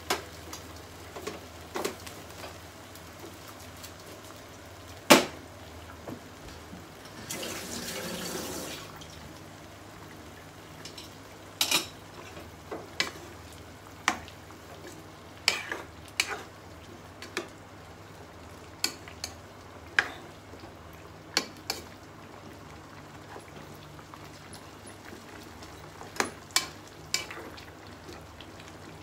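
Metal spoon clinking and scraping against a nonstick pan while stirring spareribs and vegetables simmering in broth: scattered sharp knocks, the loudest about five seconds in. A short rushing, watery noise comes about seven seconds in, over a faint steady hum.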